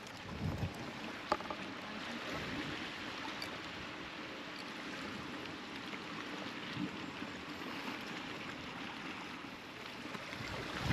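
Steady rush of sea water washing and gurgling, with a couple of faint knocks about a second in.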